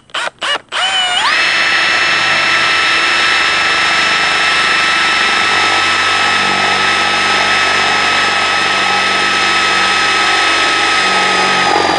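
Power drill with a 5/16-inch bit boring through the first layer of a kayak hanger's padded tubing. A few quick trigger blips, then the motor spins up with a rising whine and runs at steady high speed, stopping suddenly near the end.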